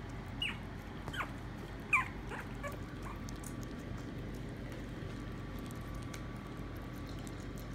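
Maltese puppy giving about five short, high, squeaky whimpers that fall in pitch, all in the first three seconds, the loudest about two seconds in. Faint clicking of a puppy eating wet food from a bowl underneath.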